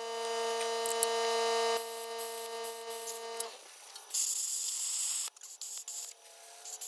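Harbor Freight Titanium plasma cutter at work on frame steel: a steady whine that stops abruptly about halfway through, followed by bursts of hissing air.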